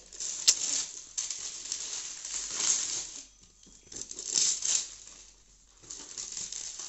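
Gift-wrapping paper crinkling and tearing as it is pulled off a cardboard box, in several bursts with short pauses, with a sharp click about half a second in.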